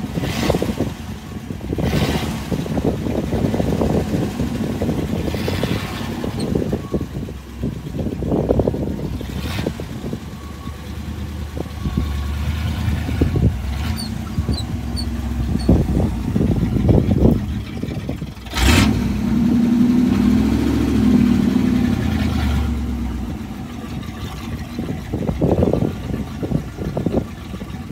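Wind buffeting the microphone in uneven gusts, with a low steady hum underneath from about twelve seconds in until about twenty-three.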